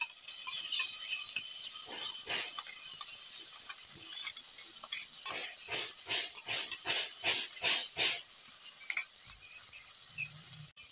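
A spoon scraping wet spice paste, in quick rhythmic strokes about three a second that come mostly in the middle of the stretch, over a steady hiss of frying.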